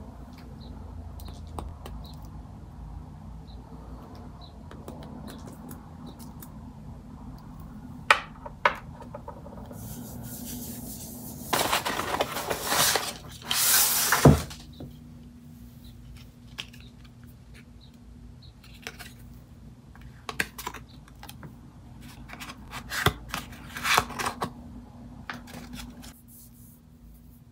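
Handling of perfume samples: scattered light clicks and taps of a small plastic-capped sample vial and its card, with a louder paper rustle lasting a couple of seconds about halfway through.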